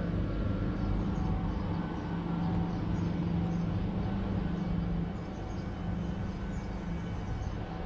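Steady low hum over a rumbling background noise.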